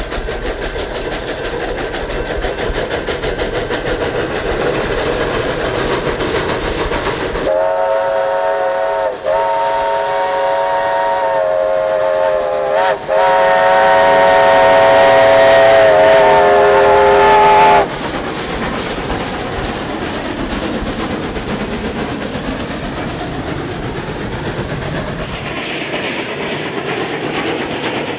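Double-headed narrow-gauge steam train led by a 4-6-0 oil-burning locomotive approaching a road grade crossing, with steady exhaust and running noise. About seven seconds in, a chime steam whistle sounds a chord of several tones, in three blasts with barely a break, the last about five seconds long. It stops about eighteen seconds in, and the locomotives and cars run on past close by.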